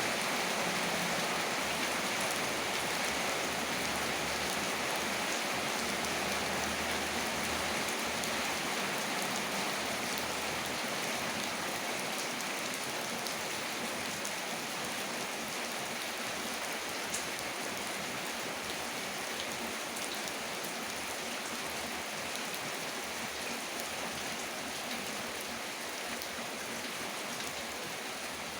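Heavy rain falling steadily, with a constant hiss of rain and the patter of drops striking surfaces.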